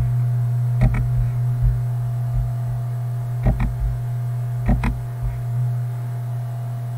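Steady electrical hum, with three pairs of short sharp computer-mouse clicks spread through it.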